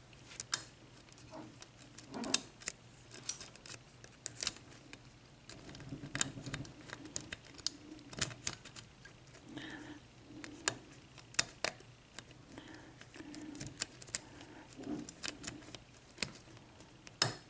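Steel lock pick clicking and scraping against the pin stacks inside a Schlage six-pin cylinder lock, irregular small metallic ticks while an overset pin is worked loose.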